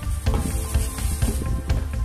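Background music with a steady bass beat.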